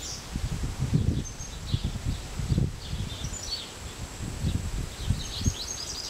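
Outdoor ambience: wind buffeting the microphone in uneven low rumbles, with small birds giving short high chirps here and there.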